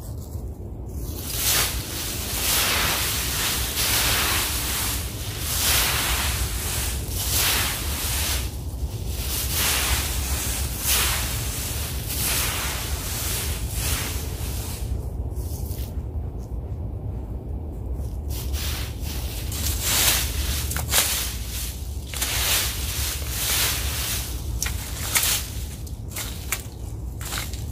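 A fan rake sweeping through dry fallen leaves in repeated rustling strokes, with a short lull about two-thirds of the way through, over a steady low rumble.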